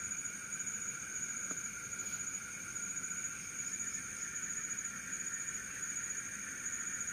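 Steady chorus of night insects, several trilling at different pitches without a break, the highest a thin, high whine.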